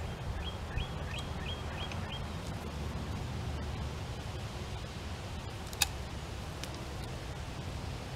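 Outdoor ambience with a steady low rumble. A bird gives six quick chirps in the first two seconds. Just under six seconds in comes a single sharp metal click, the loudest sound, from the lever-action fence post puller as its handle is worked.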